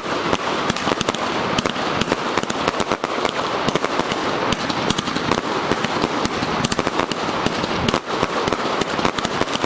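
Xplode "Smile From Hell" (CNY305) firework cake firing nonstop: an unbroken stream of sharp bangs and pops, many a second, over the steady rush of its effects.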